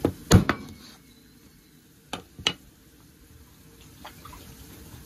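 A spoon knocking against the pot of fish curry, two quick knocks near the start and two more about two seconds in, with a faint sizzle from the pot between them.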